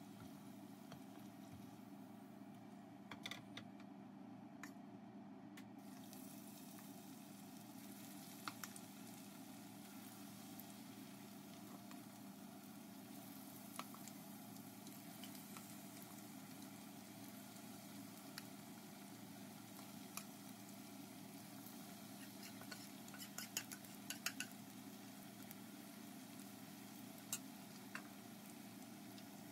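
Vegetable pakoras deep-frying in hot oil in a wok: a faint, steady sizzle, with scattered clicks and clinks of tongs and a spoon against the pan and the batter bowl, several in quick succession near the end.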